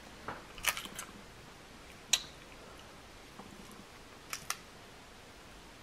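Snow crab leg shells cracking and snapping as they are pulled apart by hand: a handful of short, sharp cracks, the loudest about two seconds in and a quick pair near the end.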